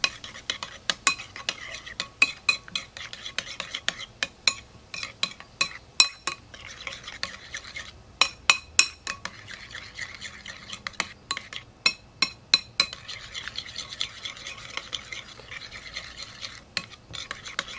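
Metal spoon stirring thick tartar sauce in a ceramic bowl: irregular clinks and scrapes of the spoon against the bowl, a few each second.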